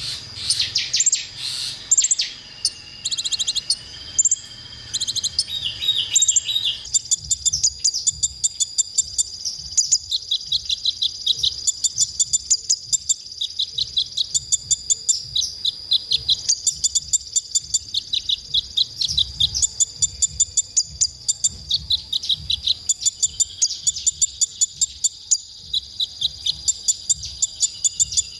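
Male Van Hasselt's sunbird singing high-pitched. For the first several seconds it gives a varied twitter of quick rising and falling notes, then a long run of short sharp chips, about three or four a second, over a steady thin high whine.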